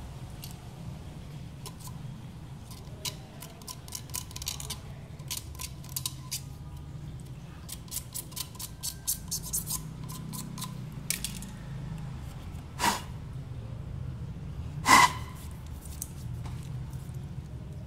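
Scissors snipping and crunching into the end of a plastic PVC pipe, a quick irregular run of small crisp clicks. Near the end come two louder clacks with a short metallic ring, the second the loudest, as the scissors are set down on the concrete floor.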